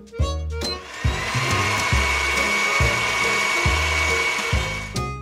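Miniature portable bottle blender's small motor running with a steady high whine while it blends milk and strawberries; it starts about a second in and stops near the end.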